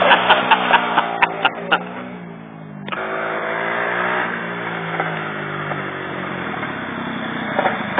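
Small engine of a home-converted mobility scooter running under way, its pitch rising and falling with the throttle. A run of sharp clicks comes over the first two seconds, and the engine sound dips and then comes back abruptly about three seconds in.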